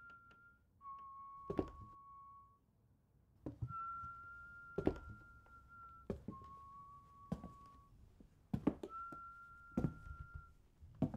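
Tense thriller sound design: a steady whistle-like tone switching between a higher and a slightly lower pitch, each held for one to two seconds, with a heavy thud every second or two.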